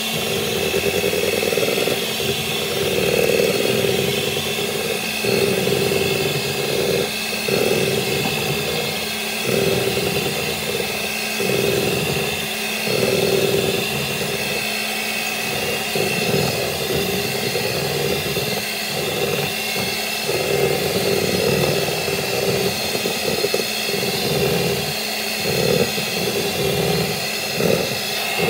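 Electric hand mixer running steadily at low speed, its two beaters churning cake batter in a glass bowl. The motor hum and its high whine hold steady, while the churning of the batter swells and dips as the beaters are moved through the bowl.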